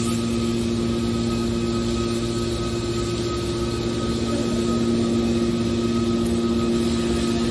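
Hydraulic power unit of a large scrap-metal baling press running: a steady motor-and-pump hum with a constant whine, a little louder from about five seconds in.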